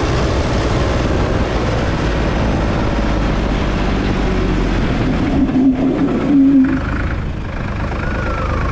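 Ford 3600 tractor's three-cylinder diesel engine running as it drives. About five seconds in, two short loud squeals come from the rear tyre skidding under hard braking, leaving a skid mark. After that the engine's rumble settles lower.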